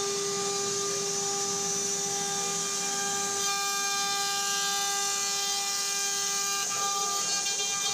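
CNC router spindle running steadily while carving a wooden door panel: a steady high whine over a hiss. The whine gets brighter about three and a half seconds in.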